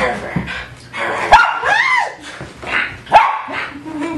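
Miniature schnauzer barking in short, sharp barks, the two loudest about a second and about three seconds in.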